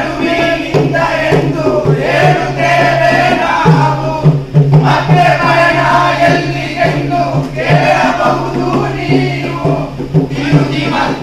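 A song with a chorus of voices singing over a steady drum rhythm.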